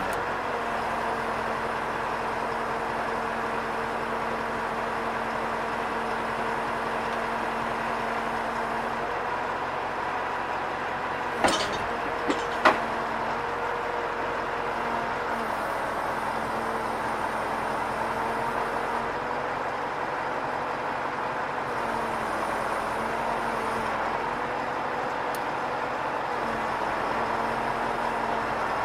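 Idling truck engine powering a truck-mounted hydraulic loader crane, a steady hum whose tones shift slightly as the crane is worked. Three sharp metal clanks come close together near the middle.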